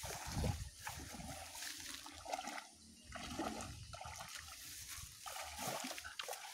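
Muddy swamp water sloshing and splashing around a person's legs as he wades knee-deep through it, in uneven strokes.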